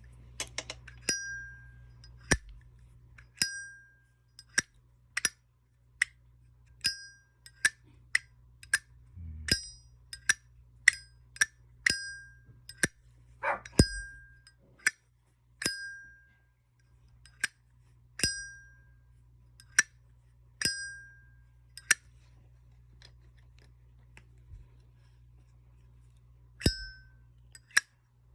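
Zippo lighters flicked open and snapped shut again and again: each open gives a sharp click, often followed by a bright metallic ring of about half a second, while other strokes are dry clicks without the ring. The lighters have gone two weeks without maintenance.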